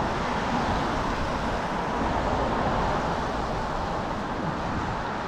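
Steady street noise, an even rush of traffic and wind with no distinct clicks or knocks.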